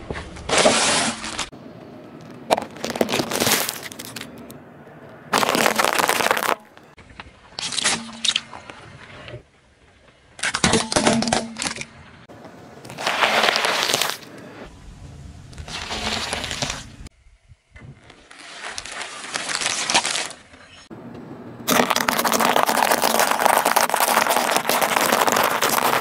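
A car tyre rolling over and crushing crunchy and soft things (a sealed snack bag, lettuce leaves, dry pasta) in a string of separate crunching and crackling bursts, about ten in all, each cut off sharply. The longest and loudest burst comes near the end.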